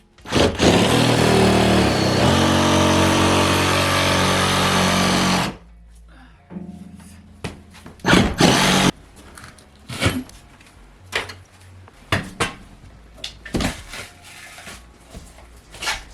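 A power tool runs loud and steady for about five seconds, then stops abruptly. Scattered knocks and clatter of demolition debris follow.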